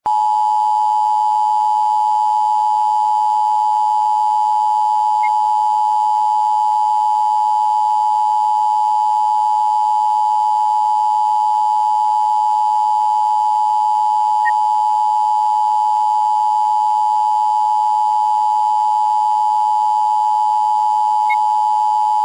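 Emergency Alert System attention signal: a loud, steady two-tone beep, the 853 Hz and 960 Hz tones sounding together without a break. It is the tone that marks a broadcast test of the alert system.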